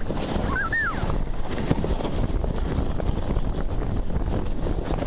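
Wind buffeting the microphone as a steady low rumble. A short high voice cry rises and falls about half a second in.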